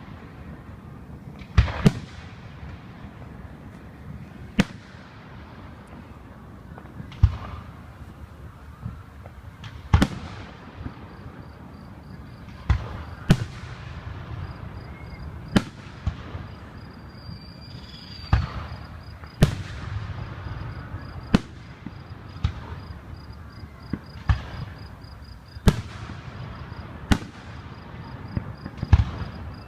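Aerial fireworks shells bursting overhead: a sharp bang every two seconds or so, each followed by a rumbling echo.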